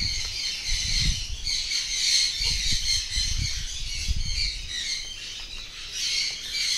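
Suncheek green-cheeked conures calling continuously in a high-pitched, harsh chatter, over low irregular bumps.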